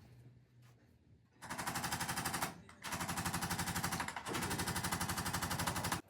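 Electric percussion device hammering in rapid, even pulses, in three bursts of a second or more each with short breaks between, starting about one and a half seconds in.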